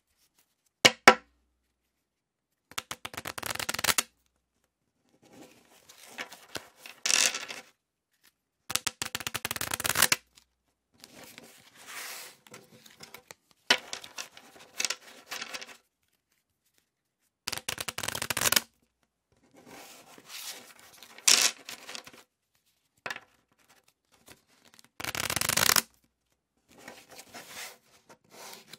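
A deck of playing cards being shuffled and dealt, in a series of short bursts of rapid card flutter and snapping with silent gaps between them.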